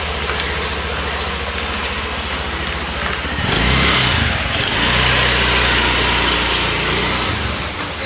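Motor vehicle engine running steadily, its note shifting about three and a half seconds in and then holding steady again.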